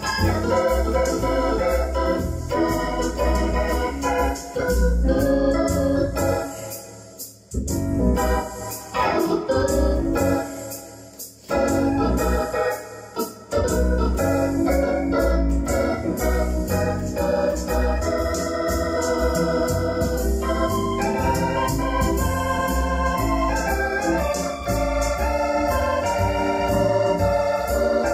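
Electronic arranger keyboard played live with an organ sound: chords and melody over a steady bass beat. The music drops back briefly about seven seconds in and again around eleven seconds in before carrying on.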